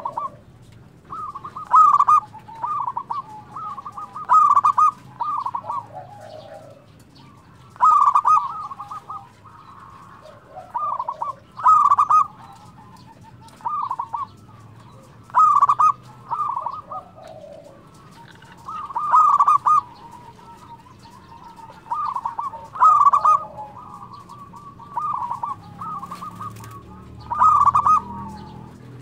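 Zebra dove (perkutut) cooing: short phrases of soft rapid coos, repeated every second or two with brief pauses between groups.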